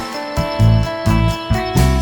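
Background music: plucked guitar over a rhythmic bass line.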